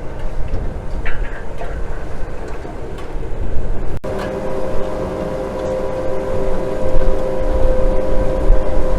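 Heavy farm machinery running with a low rumble. After a cut about four seconds in, a steady engine drone with a constant whine.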